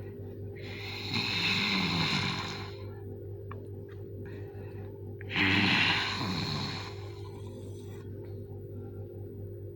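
A man snoring: two long snores, each lasting about a second and a half and spaced about four seconds apart, over a steady low hum.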